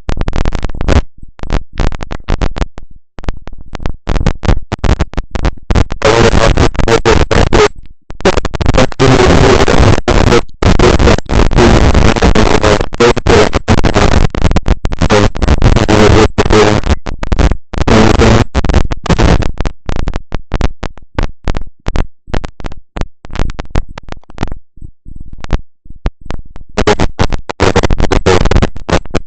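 Loud crackling static from a faulty microphone, cutting out to silence several times, with a longer break a little before the end.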